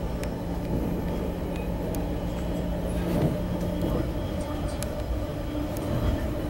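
Passenger railway coach running along the track, heard from inside: a steady low rumble of wheels on rail. A low, steady hum stops about four seconds in, and there are a few light clicks.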